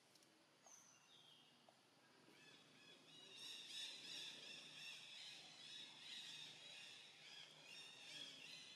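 Faint woodland ambience: a couple of short high bird chirps about a second in, then a dense, high-pitched chirping chorus that swells from about three seconds in and carries on.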